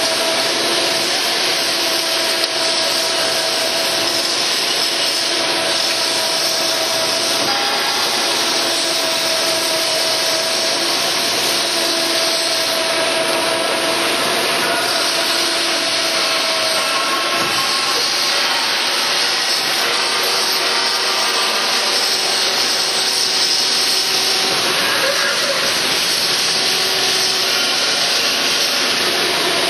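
CNC plate drilling machine's spindle driving a twist drill through steel plate under coolant jets, feeding at 3.5 mm per second: a steady cutting and machine noise with a faint held whine that changes pitch about halfway through.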